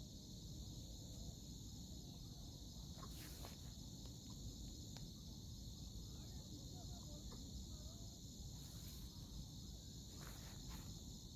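Insects droning steadily in a continuous high-pitched chorus, with a low background rumble and a few faint clicks.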